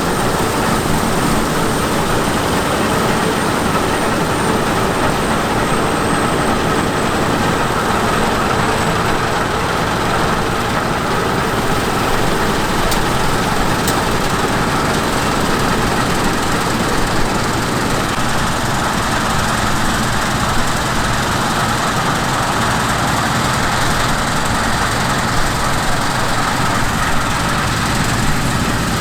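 Heavy harvest machinery running steadily: diesel engines and working machinery making a continuous even drone.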